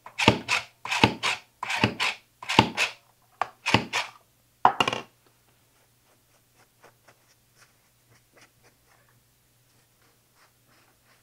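Button mushrooms pushed through an upright mandoline-style slicer: about six sharp slicing strokes, a little under a second apart, stopping about five seconds in. After that, only faint clicks as the cut slices are handled.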